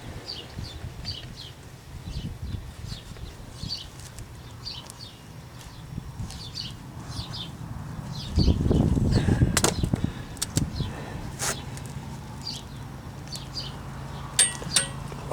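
Hub-to-knuckle bolts being tightened with a long click-type torque wrench: a heavy scuffing, straining stretch a little past halfway, then a few sharp single clicks as the wrench reaches torque. A bird chirps steadily in the background.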